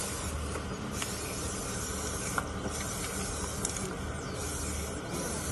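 Steady outdoor hiss with a low hum under it; a higher hiss comes and goes every second or so.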